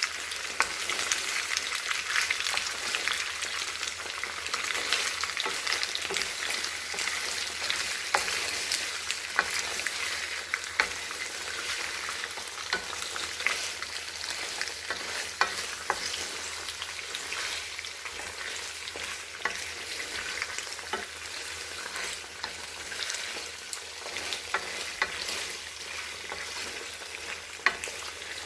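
Food frying in a pan: a steady sizzle with frequent sharp crackles and pops, easing off a little toward the end.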